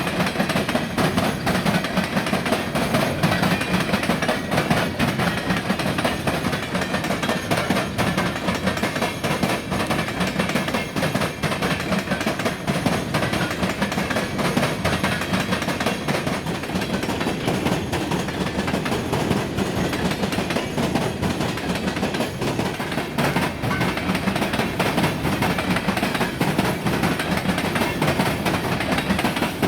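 Freight train rolling past, its wheels clattering steadily over the rail joints and the crossing diamonds.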